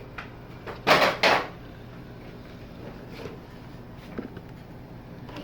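Two quick clattering knocks about a second in, a third of a second apart, with a few faint clicks around them: hands handling the TV's boards and connectors on the bench.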